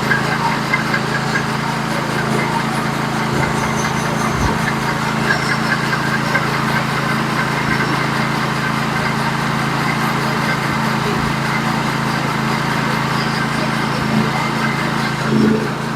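Band sawmill's small engine running steadily under load while its blade cuts slowly through a wide white oak log.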